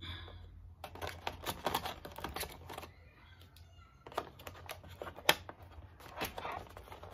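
Hands handling small hard objects: a quick run of clicks and rattling for about two seconds, then a few scattered single clicks, one of them sharp about five seconds in, over a steady low hum.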